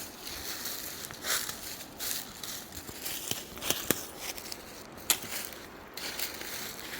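Footsteps crunching through dry undergrowth and briars, with a few sharp snaps a little past the middle.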